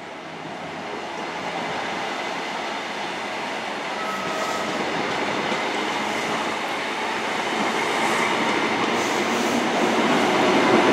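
InterCity 125 High Speed Train moving out of the platform, its coaches rolling past in a steady rumble that grows louder as the rear power car draws near.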